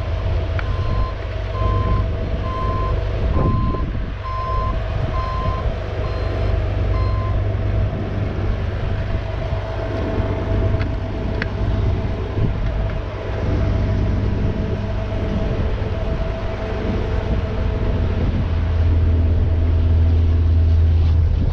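A Bobcat mini excavator's diesel engine runs steadily as the machine tracks up a tilted truck deck. A warning alarm beeps at a steady pace for the first seven seconds or so, then stops. The engine drone grows louder near the end.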